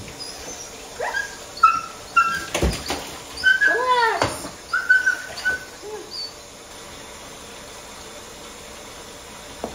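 Doberman puppy whining in a run of short, high whimpers, with one longer whine that rises and falls in pitch about four seconds in. The whimpers stop after about six seconds. A couple of sharp knocks are heard in between.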